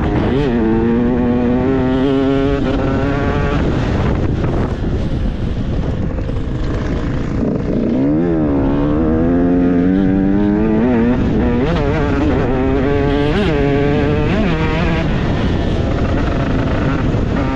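Enduro dirt bike engine revving hard, its pitch climbing and dropping again and again as the throttle is worked, over constant rough noise.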